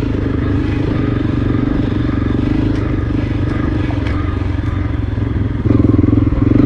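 Honda CRF300L dual-sport motorcycle's single-cylinder engine running steadily, heard muffled through a GoPro that has come loose from its mount and hangs against the rider's jacket. About five and a half seconds in, the engine sound jumps louder and clearer.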